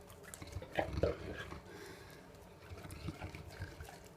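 Soft wet mouth sounds of drinking or feeding, small slurps and clicks, with two short louder gulping sounds about a second in.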